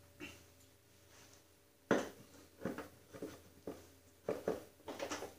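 A garden tractor's rear wheel being worked onto its axle: a string of short knocks and clicks as the wheel hub meets the axle shaft. The first knock, about two seconds in, is the sharpest.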